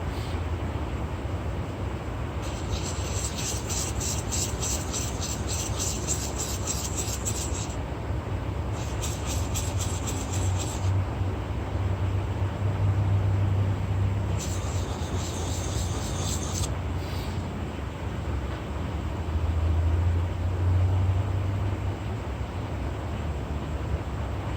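A plane iron being rubbed back and forth on a sharpening stone in four bouts of quick, even scraping strokes, honing the hollow-ground bevel until a burr is raised along the edge. A steady low rumble runs underneath.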